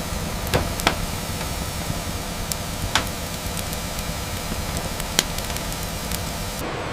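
Steady industrial machinery noise, with a few sharp knocks scattered through it; the high hiss drops away near the end.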